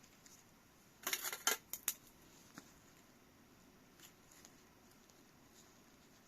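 Handling noise from a lens and its packaging being unboxed: a short burst of rustling and clicking about a second in, then a few sharp clicks and later faint ticks.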